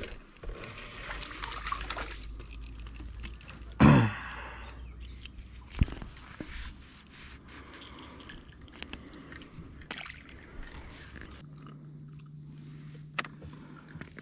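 Splashing and sloshing water from a hooked crappie thrashing at the surface beside the boat, mixed with rod and reel handling noises. A sudden loud sound with a falling pitch about four seconds in is the loudest moment, and a faint steady hum runs underneath.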